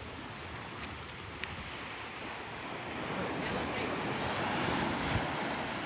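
Sea waves washing onto a sandy beach, a steady rushing that swells about halfway through, with wind rumbling on the microphone.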